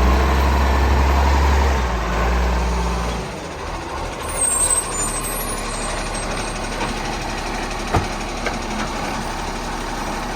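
Garbage truck running, its low, heavy engine drone dropping away about three seconds in, followed by a brief high squeal and, later, a single knock.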